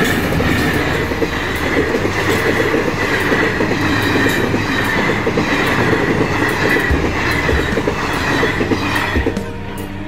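Passenger train hauled by two WDP4D diesel locomotives passing close at speed. The locomotives go by first, then the coaches follow in a steady rush with wheels clattering over the rail joints. The sound drops away about nine seconds in.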